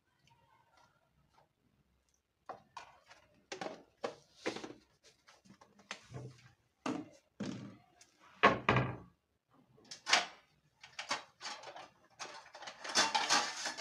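Irregular knocks, clicks and clatters of kitchen things being handled, with one heavier thump about two-thirds of the way through and a longer burst of clattering near the end.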